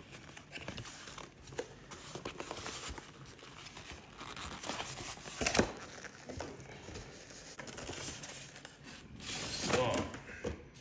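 Cardboard box and its packaging being handled: rustling and scraping, with a sharp knock about halfway through and louder rubbing near the end as the polystyrene foam insert is lifted out.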